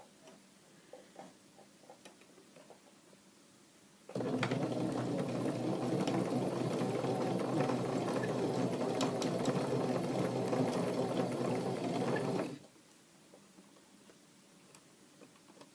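Old domestic sewing machine set to a stretch stitch, running steadily for about eight seconds while stitching stretchy t-shirt fabric, then stopping abruptly. There are a few faint clicks before it starts.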